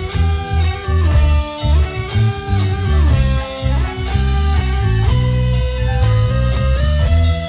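Blues-rock band playing: an electric guitar melody with sliding, bending notes over a heavy bass guitar line and steady drums.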